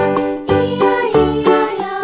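Cheerful children's background music: a plucked-string tune with a steady beat.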